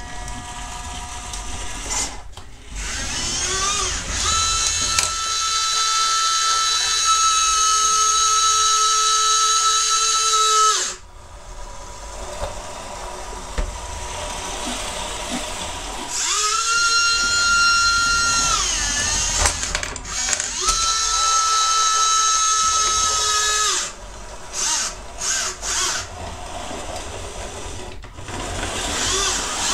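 Small electric gear micromotors of a radio-controlled model compactor whining as it drives, in three runs of several seconds and a few short spurts near the end; the pitch rises as each run starts and drops as it stops. The front micromotors turn far too fast: the builder reckons about 200 rpm instead of the 60 rpm intended.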